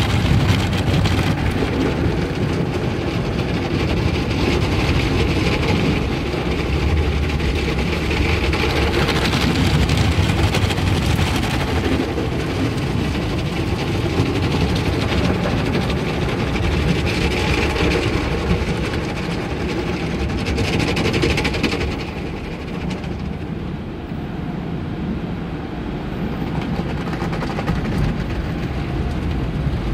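Automatic car wash heard from inside the car: a loud, steady rumble of the wash machinery with water and foam spraying against the windows. Several louder hissing swells come and go, and the noise eases off somewhat about two-thirds of the way through.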